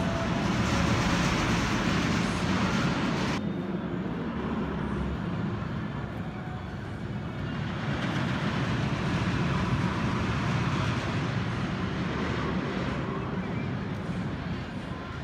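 Steel looping roller coaster train running on its track, a continuous rumble that swells again as the train goes through the loops. The sound changes abruptly about three seconds in.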